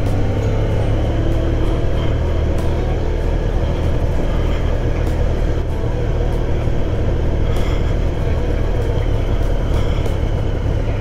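Motorcycle engine running at low speed, a steady low drone with faint scattered clicks over it.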